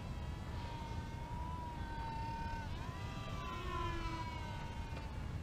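Electric motors of a small foam RC C-17 Globemaster III model plane whining in flight: a steady high tone that dips and then rises in pitch about halfway through. Wind rumbles on the microphone underneath.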